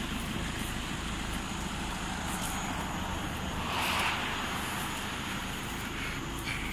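Road traffic noise, with a vehicle passing about four seconds in.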